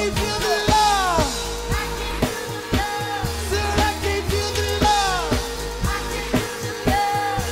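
A live band playing: a sung melodic vocal line with gliding, held notes over electric guitar, a drum kit keeping a steady beat, and a low bass.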